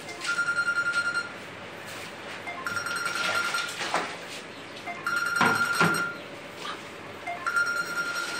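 An electronic phone ringtone: a warbling beep about a second long, repeating four times about every two and a half seconds. A few faint knocks sound between the rings.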